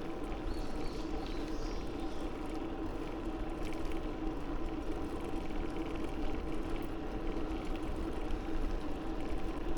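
Steady riding noise from a bicycle on the move: wind rumbling on the microphone with a constant hum from the tyres and drivetrain.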